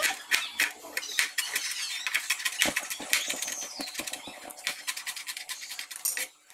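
Kitchen knife chopping onion on a plastic cutting board: quick, irregular taps of the blade on the board, several a second, stopping just before the end.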